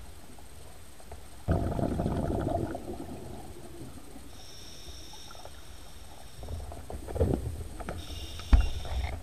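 Scuba diver's breathing heard underwater: a gush of exhaled regulator bubbles about a second and a half in that lasts about a second, and a thin high hiss of the regulator on the inhale around the middle and again near the end. A few sharp knocks and bubbly bursts come near the end.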